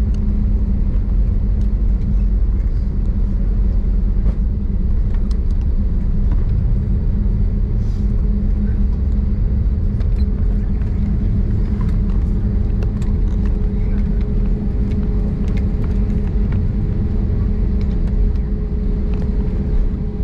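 Steady low rumble with a constant two-note hum, the cabin noise of an Airbus A320neo airliner.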